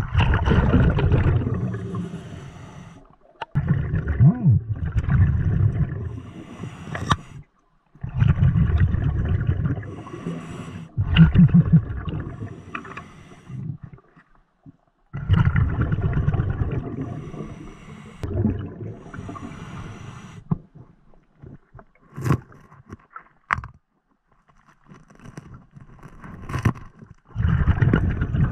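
Scuba regulator exhaust bubbles rumbling past the underwater microphone in bursts every three to four seconds as the diver breathes out, each fading away, with a few sharp clicks in a longer pause near the end.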